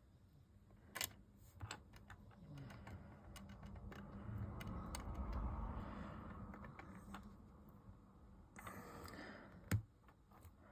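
Tiny plastic mini building bricks clicking and tapping as they are handled and pressed onto their pins, with a stretch of soft rubbing handling noise through the middle.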